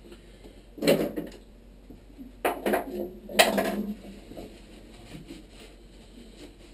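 Clattering and knocking of hard items being handled, in three bursts: about a second in, then twice between two and a half and four seconds in. The sound echoes slightly in a small washroom.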